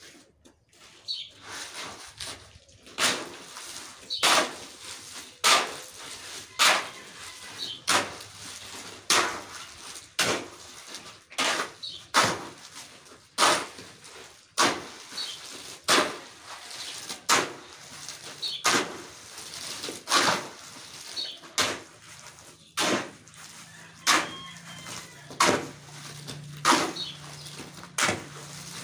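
Steel shovel digging and scraping into a water-soaked pile of sand, gravel and cement, mixing concrete by hand on the ground. One stroke about every second, steady throughout.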